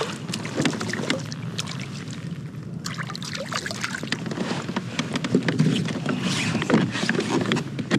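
A hooked crappie splashing and thrashing at the water's surface beside a kayak as it is reeled in and lifted aboard, with many sharp clicks and knocks.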